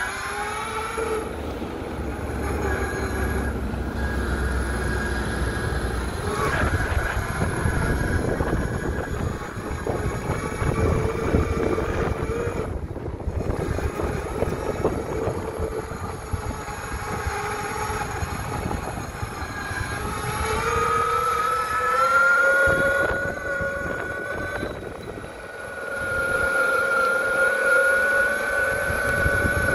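Electric mountainboard's motors whining while it rides, the pitch rising and falling with speed and climbing about twenty seconds in, over the rumble of its off-road wheels rolling on the ground.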